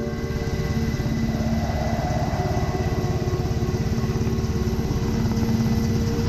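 Helicopter rotor and engine heard from aboard the helicopter: a loud, fast, even chopping beat.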